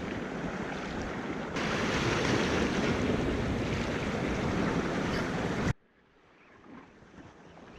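Sea surf washing against shore rocks with wind buffeting the microphone. It gets louder about one and a half seconds in, then cuts off abruptly about three quarters of the way through, leaving near silence.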